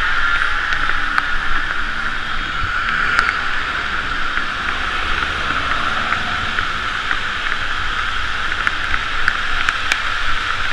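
Steady hiss of a bicycle rolling over a rain-soaked street, tyres spraying water, with a low rumble underneath and a few sharp ticks.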